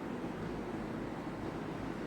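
Steady low background rumble and hum, unchanging, with no distinct events.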